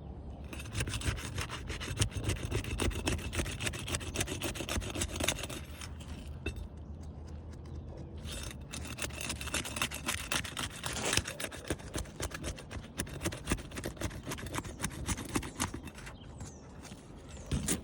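Asphalt roof shingles being pried apart and unsealed with a hand tool: a run of quick, rasping scrapes and rubs as the tabs are worked loose from their adhesive strips, easing off briefly about six to eight seconds in.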